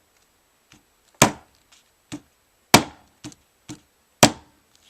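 Rubber mallet striking a leather-wrapped Case Small Toothpick slipjoint knife at its pivot: three firm blows about a second and a half apart, with lighter taps between. The blows peen the pivot tighter to take up blade play.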